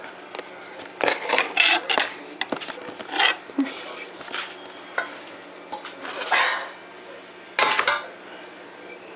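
Kitchenware clattering: a glass measuring cup and a metal pot being handled, with irregular knocks, clinks and scrapes.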